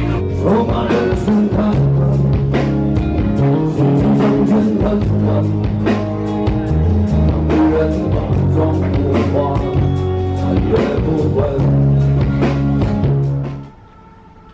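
Live band playing rock music: acoustic guitar, bass and drum kit keeping a steady beat. The music cuts off suddenly about a second before the end, leaving quiet room tone.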